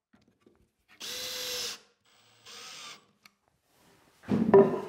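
Cordless drill/driver driving screws into a wooden table shelf: the motor runs for under a second, stops, then makes a shorter, quieter run. Near the end comes a louder burst of knocking and handling noise.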